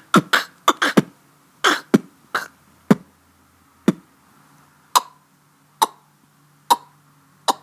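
A child making sound effects with his mouth: a string of short clicks and pops, quick at first, then slowing to about one a second.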